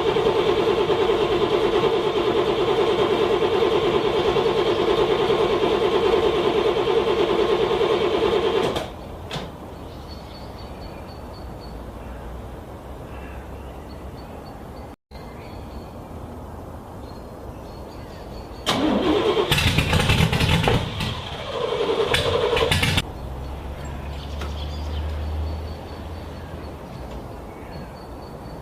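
A car's starter cranking a cold engine in a steady, fast rhythm for about nine seconds, then stopping without the engine starting. After a quieter pause, a second cranking attempt lasts about four seconds and is followed by a low hum. This is an engine struggling to start in freezing cold.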